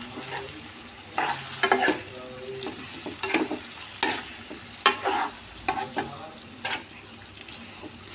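Steel spatula scraping and stirring paneer cubes through onion-tomato masala in a nonstick kadhai, about once a second, over a light sizzle of frying.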